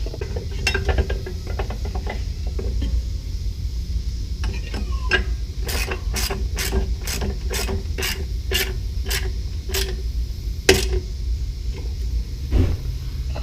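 Hand ratchet wrench tightening the bolt that holds the air suspension bag's lower bracket: a run of about ten sharp ratchet strokes, roughly two a second, through the middle, after a few lighter metal clicks, over a steady low hum.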